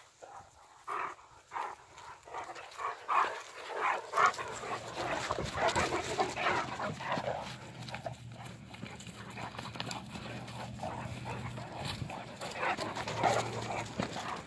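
A Saint Bernard and a Great Dane play-fighting, making quick runs of short vocal noises. They are busiest in the first half and come again near the end.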